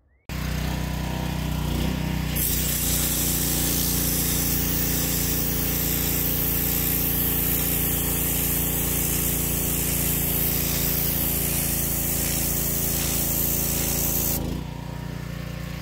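Wilks USA TX625 petrol pressure washer's 7 hp four-stroke engine running steadily while its turbo nozzle blasts water onto a concrete path. The loud hiss of the jet starts about two seconds in and stops near the end, leaving the engine running on its own.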